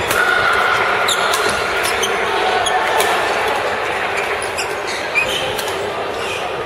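Badminton rally: several sharp clicks of rackets striking the shuttlecock and short squeaks of shoes on the court floor, over the steady din of a busy hall.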